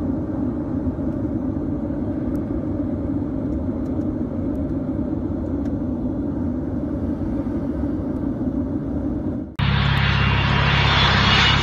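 Steady low rumble of an Airbus A380 in cruise, heard inside the passenger cabin from a window seat beside an outboard engine whose front section has torn away. About nine and a half seconds in, the sound cuts to a much louder, hissing roar of the A380 flying low on approach, heard from the ground.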